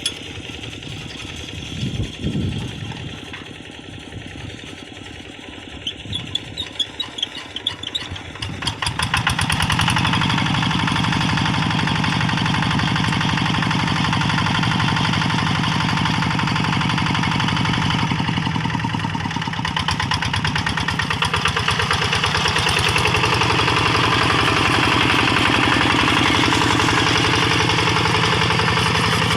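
Kubota RD85 DI single-cylinder diesel engine on a hand tractor: a few seconds of irregular knocks, then about nine seconds in it picks up to a steady, loud, evenly pulsing run that dips and recovers in speed briefly near the end.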